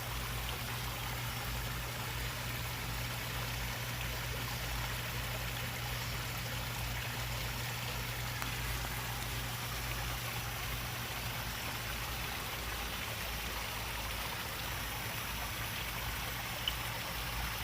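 Koi pond water running and trickling steadily, with a low steady hum underneath.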